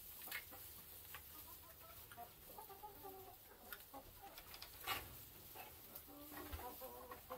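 Hens clucking softly in short, scattered calls, with a few sharp clicks and knocks in between, the loudest about five seconds in.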